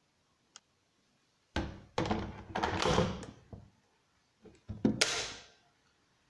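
Handling noises: a run of knocks and thuds with scraping, in two bursts, after a short click.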